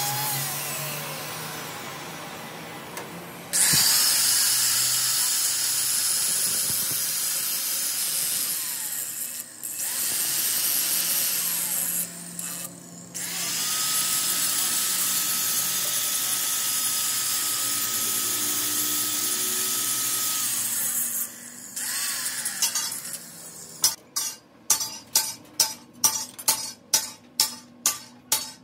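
Electric grinders grinding the steel yoke of a truck drive shaft held in a lathe chuck: a straight die grinder, then a handheld angle grinder. The grinding hiss comes in several stretches with short pauses, the longest carrying a steady high whine. Near the end a run of sharp taps, about two a second.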